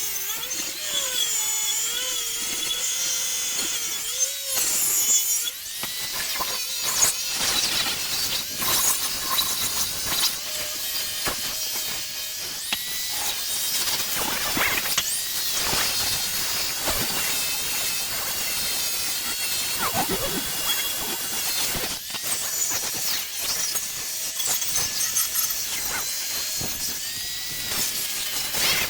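A handheld power tool with an abrasive or wire wheel running against steel bar stock, stripping off the mill scale, with a dense high hiss and a whine that wavers in pitch as the load on the wheel changes.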